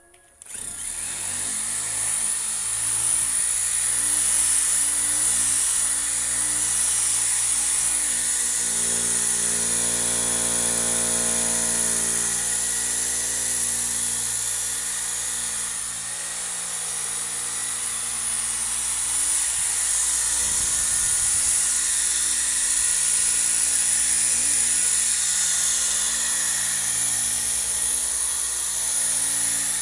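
Electric polisher (buffer) running against a painted car bumper with fine compound, starting abruptly about half a second in. It keeps up a steady high whine, its tone shifting a little partway through.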